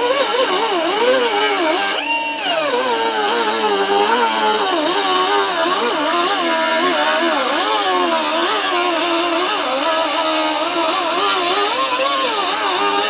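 Power tool motor running under load while cutting metal, its pitch rising and falling continuously as the load on it changes.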